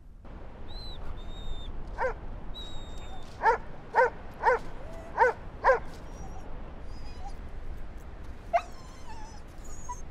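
A dog giving a run of short, high barks or yips, about six in quick succession, then one more a little later, over steady surf and wind noise. Faint high chirps sound now and then.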